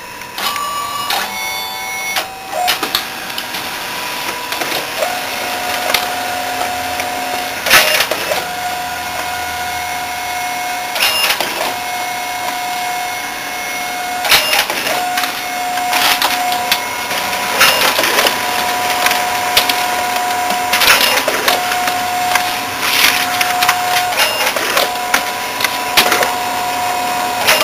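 Xerox A-Color 935 colour copier running with its covers off. A steady high whine runs throughout, joined by a second motor tone that starts and stops every couple of seconds. Sharp mechanical clacks come from the drive mechanism at irregular intervals.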